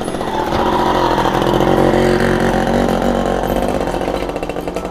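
A small engine running, getting louder toward the middle and then fading away.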